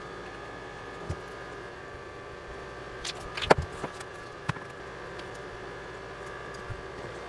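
Scattered clicks and small knocks of parts and tools being handled as a Crosman 362 air rifle's breech is taken apart, with the loudest cluster of clicks about halfway through, over a steady background hum.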